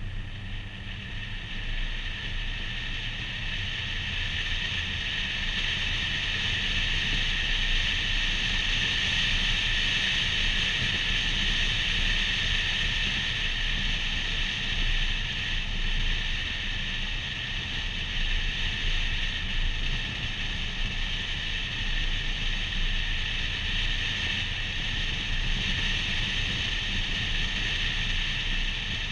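Car driving along a street, heard from a hood-mounted camera: a steady rushing hiss of wind and road noise over a low rumble, growing a little louder over the first few seconds.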